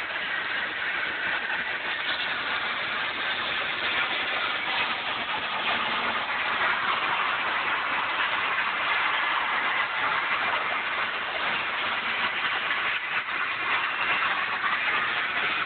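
John Deere 6230 tractor's diesel engine running steadily while mowing hay, with an even mechanical drone that neither revs up nor dies down.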